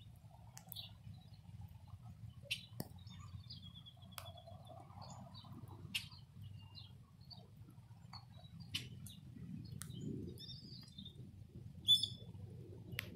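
Birds chirping in short calls over a steady low background rumble, with scattered sharp ticks, the loudest about twelve seconds in.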